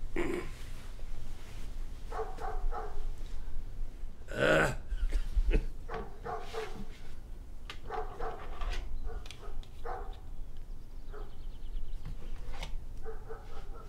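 A dog barking in short runs of two or three barks every few seconds, with one louder, longer sound about four and a half seconds in.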